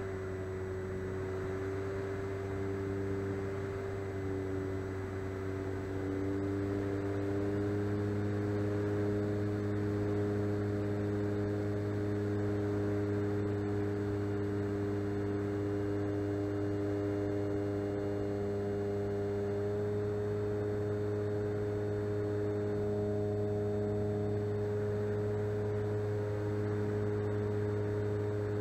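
Electric motor and propeller of an E-flite Cessna 150 RC plane running steadily in flight, a constant hum whose pitch and loudness rise slightly about seven seconds in.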